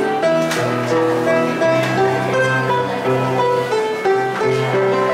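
A piano being played: a slow melody of single notes over a held lower bass line.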